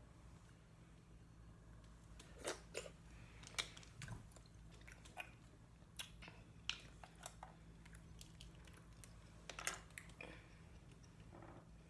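A person chewing seafood close to the microphone: scattered wet smacks and sharp crunchy clicks, about a dozen, the loudest a few seconds in and again near the end, over near silence.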